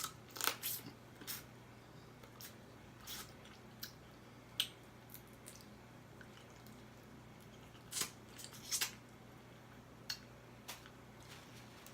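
Close-miked eating of crab legs: scattered short clicks and wet smacks of chewing and of picking at the shells, a dozen or so at irregular spacing, the loudest a little past the middle.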